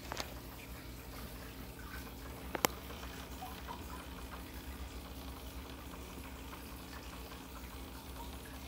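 Aquarium water circulating, a faint trickle with small bubbling ticks over a steady low pump hum. A sharp click sounds about two and a half seconds in, with a smaller one just after the start.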